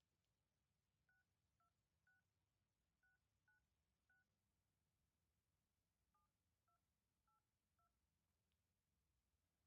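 Very faint phone keypad dialing tones, ten short two-note beeps as a number is keyed in. Six come in a quick run, then after a pause of about two seconds four more follow.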